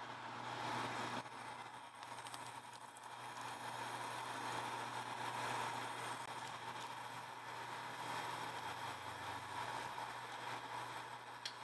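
Steady hiss of cooking on the stove over a low hum, with a brief click near the end.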